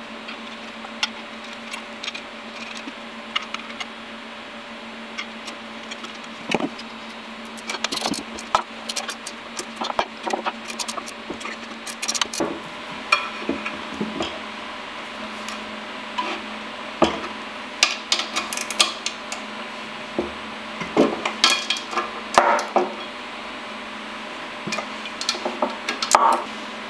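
Metal parts knocking and clinking on a wooden bench as a burner motor's steel mounting flange and its bolts are handled and fitted with a hand tool: irregular clanks and clicks, busiest in the second half, over a steady low hum.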